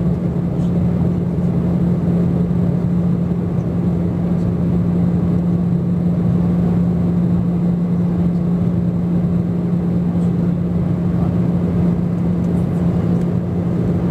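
Steady in-flight cabin noise of an Airbus A320 on approach, heard beside the wing: an even rush of engine and airflow noise with a constant low hum.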